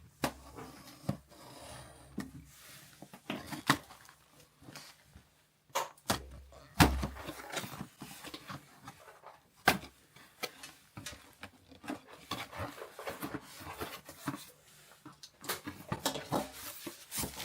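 Handling of a rice cooker's cardboard box and packaging: scattered knocks, clicks, scrapes and rustling, with a heavier thump about seven seconds in.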